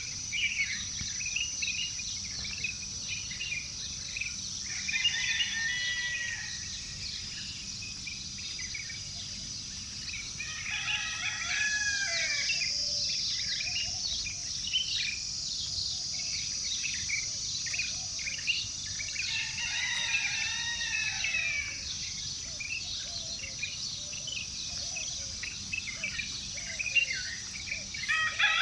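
Morning outdoor chorus: songbirds chirping and calling continually over a steady high insect drone. A rooster crows about three times, near the start, the middle and later on.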